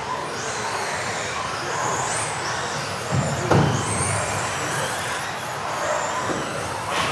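Several electric RC off-road buggies racing on a sports-hall floor, their motors whining and gliding up and down in pitch as they accelerate and brake, echoing in the hall. A loud thump comes about three and a half seconds in.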